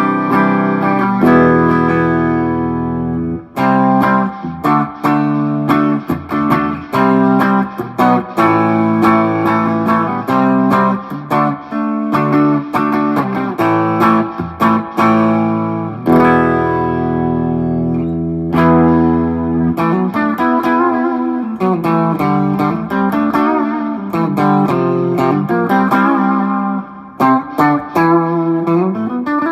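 PRS Singlecut electric guitar on its Fralin P90 pickups, played clean through a Marshall JCM 2000 with delay and a little reverb: chords and picked single notes, with bent notes wavering in pitch in the last third and a rising bend near the end.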